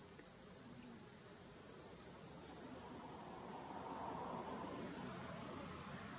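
Insects droning in a steady, unbroken, high-pitched chorus.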